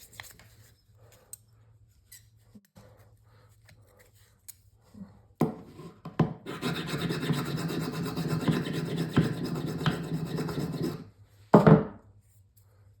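Steel scraping steadily against a hard edge for about four seconds, like a scissor blade being drawn over a sharpener. A few light clicks and a knock come before it, and one sharp knock follows.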